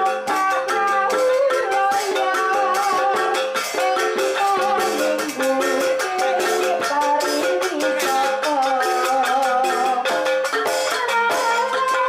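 Javanese jaranan gamelan music: a stepping melody on pitched instruments over dense, fast rattling percussion.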